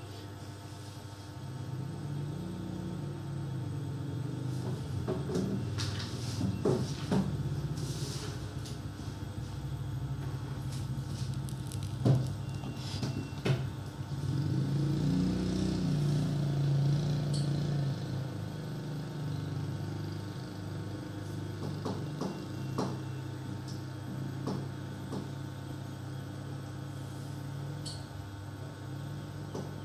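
Hand-cranked generator whirring, its hum rising and falling in pitch as the cranking speeds up and slows, with a few sharp clicks and knocks in between.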